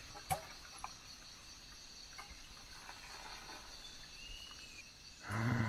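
Rainforest insects keep up a steady high drone. Two light knocks come in the first second, and a brief faint whistle a little after four seconds.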